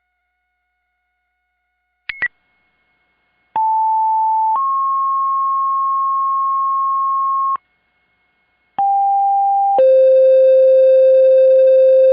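Fire department radio dispatch paging tones: a short radio chirp, then two two-tone sequential pages, each a one-second tone stepping straight into a longer three-second tone. The first pair steps up in pitch and the second steps down to a low tone. These tones set off the firefighters' pagers for the water rescue call.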